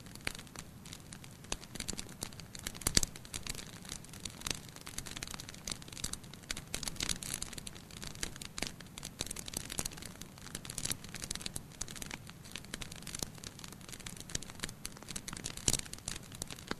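Wood fire in a fireplace crackling and popping steadily over a soft hiss of flames, with louder sharp pops about three seconds in and again near the end.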